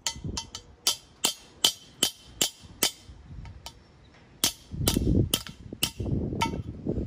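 Hammer blows on a small steel bracket, bending a 90-degree bend into it: sharp ringing strikes about two or three a second. A short lull follows, then more blows over a low rumbling noise.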